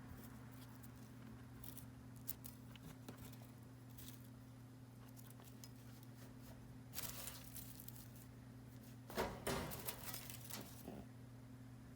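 Dry grass hay being gathered by hand, rustling and crackling in scattered small clicks, with the loudest handful about two-thirds of the way through. A steady electrical hum runs underneath.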